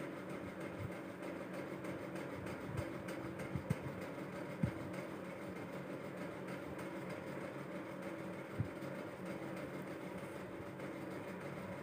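Faint steady background hum, with a few soft clicks as the seed pearls, needle and thread are handled.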